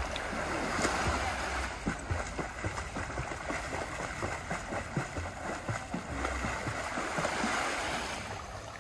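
Shallow seawater splashing and sloshing as a person wades in and ducks under the surface, a steady irregular watery rush. Now and then a low rumble of wind on the microphone.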